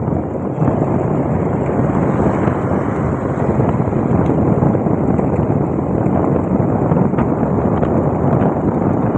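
Wind buffeting the microphone on a moving motorbike: a loud, steady rumble of wind and road noise with the bike running underneath.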